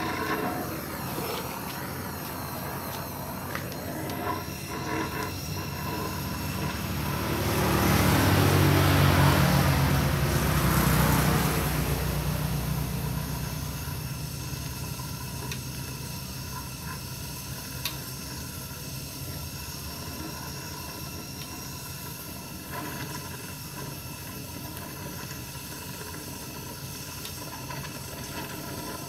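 Gas welding torch flame hissing steadily as it welds the end of a chrome motorcycle muffler with a filler rod. A louder low rumble swells up about seven seconds in and fades away by about thirteen seconds.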